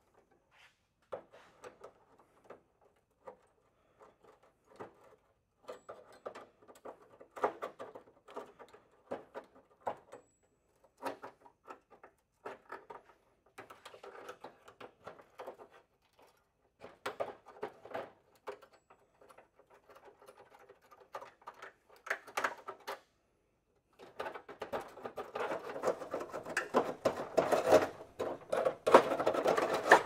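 Hand snips cutting rusty sheet steel on a Model A trunk lid, an uneven run of short metallic crunching snips. About 24 seconds in the snipping gives way to a denser, louder scraping and rubbing of sheet metal as the panel is handled.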